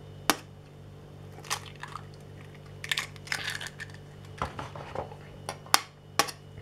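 Two eggs cracked and broken open over a glass mixing bowl of flour: a series of sharp taps and short shell crunches, several seconds apart.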